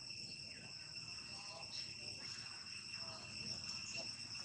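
Steady, high-pitched insect chorus, a continuous shrill drone of crickets or cicadas.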